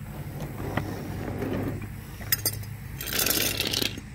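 Handling noise: a few light clicks and clinks, then a crinkling rustle about three seconds in as a crumpled white bag is picked up, over a steady low hum.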